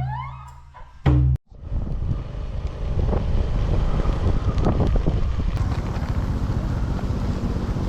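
Background music fading out, a short loud hit just after a second in, then a sudden cut. After that comes steady wind buffeting on the microphone over a low rumble.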